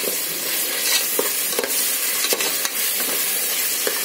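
Onions, green chillies and coarsely ground ginger-garlic frying with a steady sizzle in hot oil in a pressure cooker, stirred with a spatula that scrapes and knocks against the pan several times.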